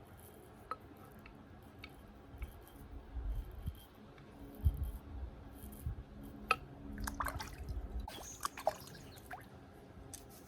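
An axe blade shaving wet stubble in a series of short rasping strokes, with low bumps from handling.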